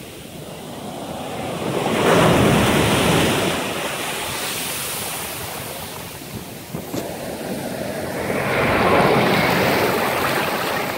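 Ocean surf breaking on a sandy beach: waves crashing about two seconds in and again toward the end, with foamy wash running up the sand in between.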